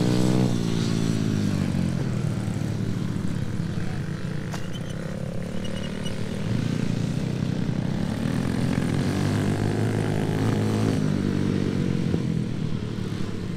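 Several small kids' dirt bikes running on a motocross track, their engines revving up and easing off as the riders throttle and let off. One engine's pitch falls away in the first second or so, and the revs climb again about halfway through.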